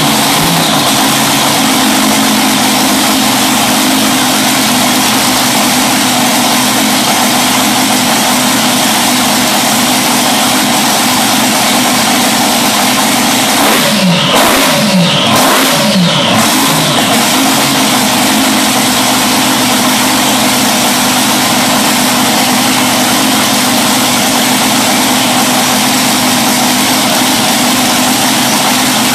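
Supercharged drag-boat engine running steadily at idle, loud, and blipped a few times from about halfway through, its pitch sweeping up and back down before it settles to idle again.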